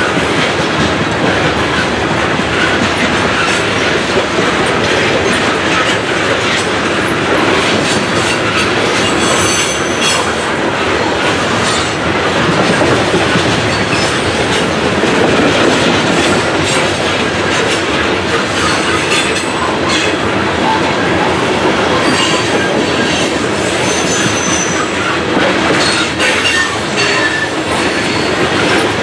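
Coal train hopper cars rolling past close by: a loud, steady rumble of steel wheels on the rails with clacking over the rail joints, and brief high wheel squeals a couple of times.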